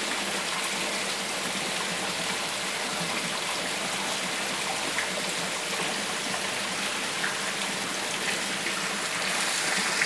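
Steady rain falling, an even hiss with a few faint drip ticks, growing a little louder near the end.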